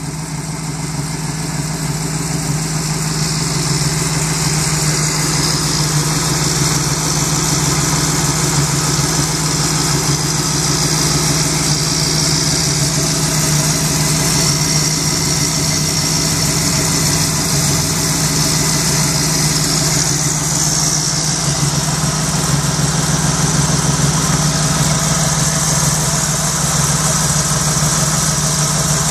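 1964 Chevrolet Impala's engine idling steadily, heard up close with the hood open.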